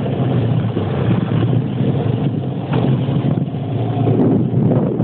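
A boat's motor running steadily: a continuous low rumble with water and wind noise over it.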